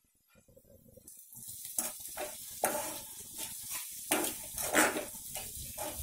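Chopped tomatoes sizzling in hot oil in an aluminium pot while a steel ladle stirs them, with irregular scrapes and knocks against the pot. This is the stage where the tomatoes are cooked down until soft. The sizzling starts about a second in, after a brief silence.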